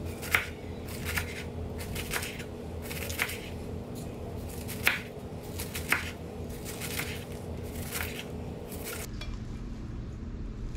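Knife cutting through a head of red cabbage onto a wooden cutting board, a crunchy cut roughly once a second, some strokes much louder than others. A faint steady hum stops about nine seconds in.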